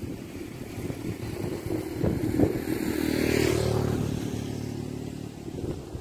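A motor vehicle engine passes by, growing louder to a peak a little past halfway and then fading away, with wind buffeting the microphone.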